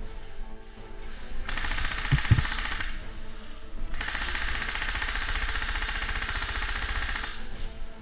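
Airsoft gun firing on full auto in two rapid bursts: a short one of about a second and a half, then a longer one of about three seconds. A couple of dull thuds land during the first burst.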